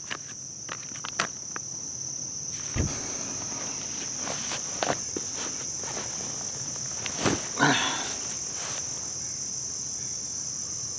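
A steady high-pitched drone of insects calling. Scattered light clicks sound in the first second or so, and a sharp knock followed by a short rustle comes a little past halfway.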